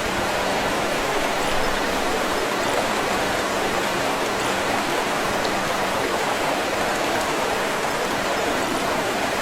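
AI-generated river sound effect: a steady rushing of flowing water, close enough to pass for a big river.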